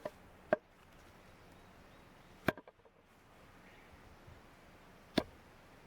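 Three sharp knocks of wood being chopped, about two and a half seconds apart.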